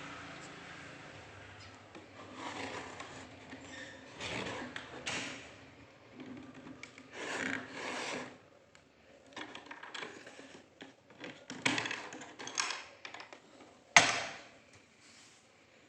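Handling noises from a replica Glock 19 and its hard carry case: a run of short rubbing and scraping sounds, with a sharp click near the end as the loudest sound.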